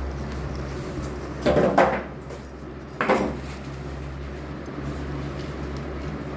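Three short knocks, two close together about a second and a half in and one more about a second later, over a steady low hum.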